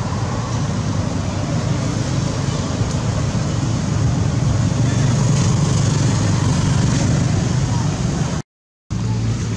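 Steady low rumble with hiss, like wind or a motor, cutting out to silence for about half a second near the end.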